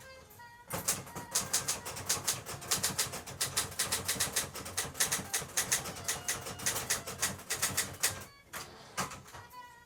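Olivetti Linea 88 manual typewriter being typed on: a fast, uneven run of key strikes, several a second, that stops about eight seconds in, with a few more strikes just before the end.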